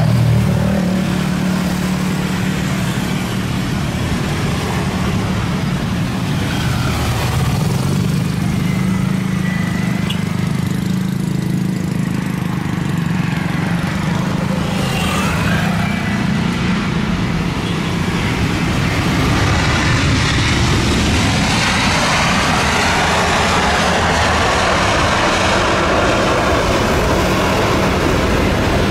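A steady low engine hum, with a jet airliner's noise building up from about two-thirds of the way in as it approaches, its pitch bands slowly sweeping.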